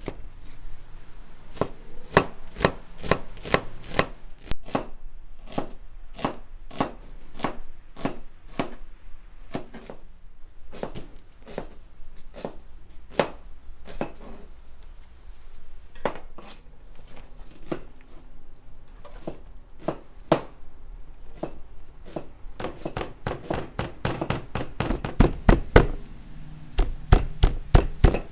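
Knife chopping raw lamb on a wooden cutting board, with sharp strokes about two a second. Near the end the strokes come faster and heavier.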